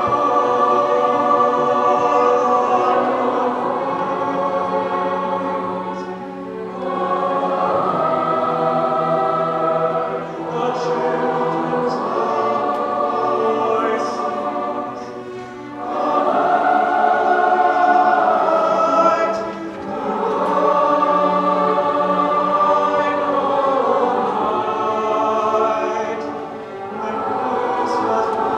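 Large high-school choir singing long, held phrases with string orchestra accompaniment. The sound swells and eases between phrases every few seconds.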